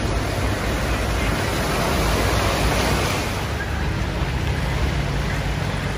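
Steady rushing and sloshing of floodwater moving across a road, with a low rumble underneath. A little past halfway the hiss turns duller.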